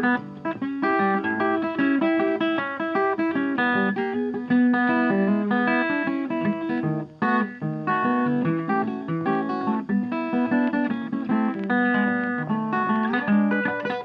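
Background guitar music with quick plucked notes.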